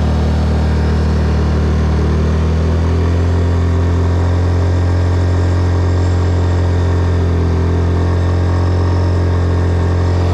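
Fuel-injected Honda EU3200i inverter generator's engine running hard under heavy electrical load. Its speed steps up about two and a half seconds in, from roughly 2,600 to 3,000 rpm, as it pushes toward its overload point of about 3,500 watts.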